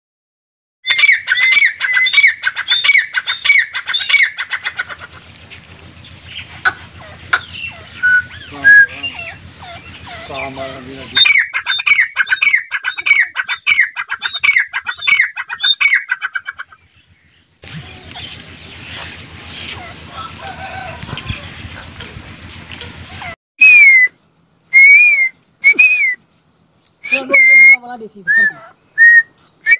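Caged grey francolin (teetar) calling: fast runs of loud, ringing repeated notes, about two a second, then single loud notes broken by short gaps near the end. A faint low hum runs under the middle part.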